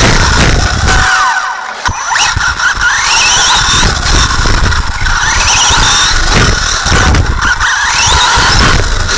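On-board sound of a racing RC car: its motor and gears whine, rising in pitch several times as it accelerates, over a loud rattling rumble from the chassis and tyres on the track. The rumble drops out briefly just after a second in and ends with a sharp knock.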